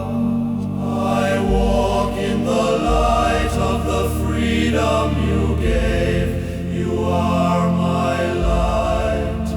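Worship music: a choir holding wordless sustained chords over low, sustained bass notes that shift every couple of seconds.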